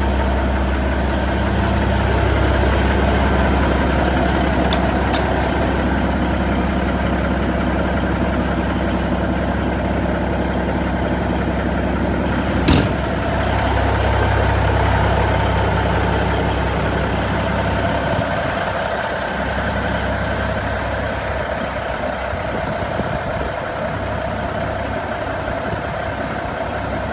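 Caterpillar diesel engine of a 1993 Peterbilt 379 idling steadily, with one sharp knock about halfway through.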